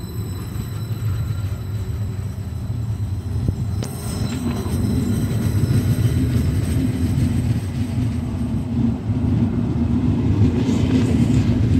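Deutsche Bahn Class 4110 double-deck electric multiple unit rolling past the platform: a steady low rumble of wheels and running gear that grows louder about four seconds in.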